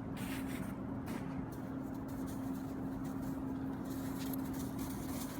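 Steady drone of a car on the move, heard from inside the cabin: even road and engine noise with a low, constant hum.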